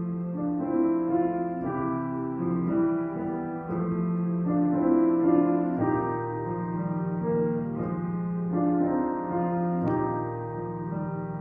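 Handbells rung by a single player, playing a slow tune with notes ringing on and overlapping into chords. There is one light knock near the end.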